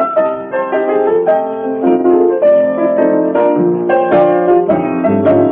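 Blues piano introduction: a continuous run of chords and treble figures, no singing yet.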